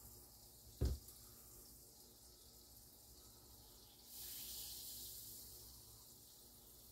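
A single low thump a little under a second in, then a hiss that starts suddenly about four seconds in and fades away over about two seconds.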